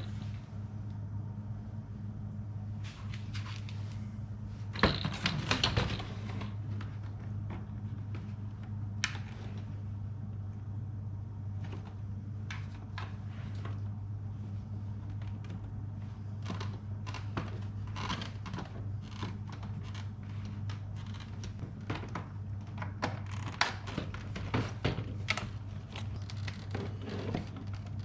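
Scattered clicks, taps and rustles of hands working on a car door's window mechanism and panel, over a steady low hum. The loudest handling noises come about five seconds in.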